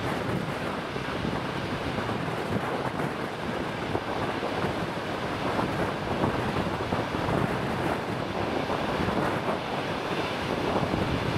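Moving passenger train heard from on board: a steady rushing noise of wheels running on the rails, with wind buffeting the microphone.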